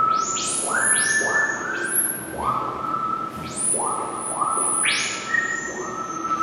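Electronic synthesizer music: overlapping tones, each sweeping quickly upward into a held note, with a new one starting every half second or so.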